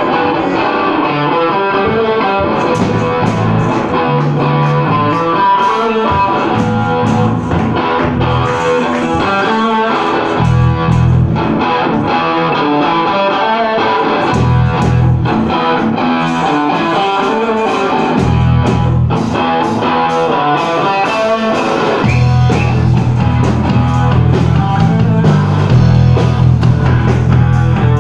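Blues-rock band playing: electric guitar over bass guitar and drums, the bass growing heavier and the music a little louder over the last several seconds.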